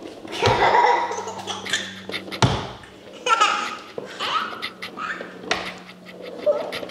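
A toddler laughing and giggling in short bursts, with two sharp thumps, one about half a second in and one about two and a half seconds in.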